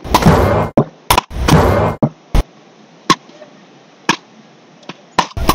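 Wooden beach rackets hitting the ball in a rally: sharp knocks roughly once a second. Two louder, longer noisy bursts come in the first two seconds.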